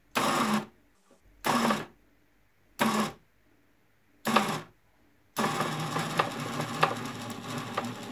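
Electric motor and 3D-printed plastic gearbox of a DIY linear actuator running under heavy load, pulling close to 100 kg. It runs in four short bursts of about half a second each, then runs continuously for about three seconds, with small clicks through the gearing.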